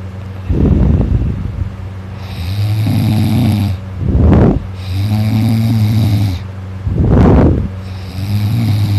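A sleeping person snoring loudly: a buzzing, low-pitched snore of about a second and a half alternates with a short, harsh rush of breath, three times over.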